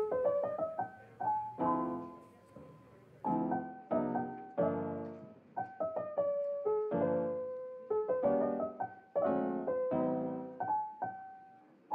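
Background piano music: a slow, gentle melody of struck notes and chords, each ringing out and fading.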